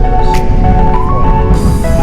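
Background music: held synth notes that step between pitches over a steady low bed, with a bright hiss near the end.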